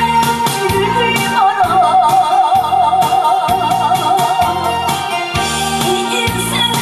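Woman singing into a microphone over amplified backing music with a steady beat, holding one long note with wide vibrato from about a second and a half in until about five seconds.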